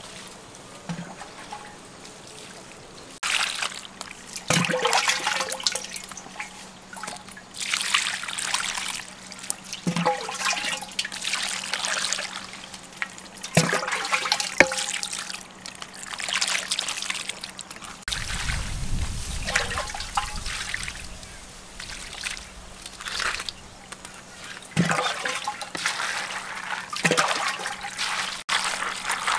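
Water poured by the ladleful into a wicker basket, splashing and trickling through it as shelled peanuts are rinsed, in repeated pours every few seconds with small knocks between them.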